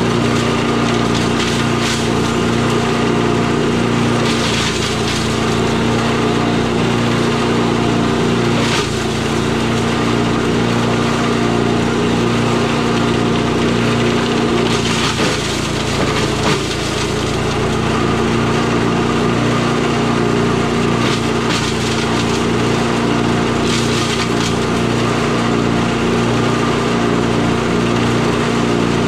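Tomahawk chipper shredder with its 8 hp Briggs and Stratton engine running steadily while branches are fed through, with sharp cracks and snaps of wood being chipped every few seconds. The engine note dips briefly about halfway through as it takes the load.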